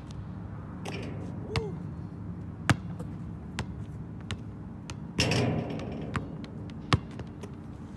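Basketballs bouncing on an outdoor asphalt court during quick repeated shots: a series of sharp, separate knocks, the loudest about a third of the way in and again near the end, with a short louder rush a little past halfway.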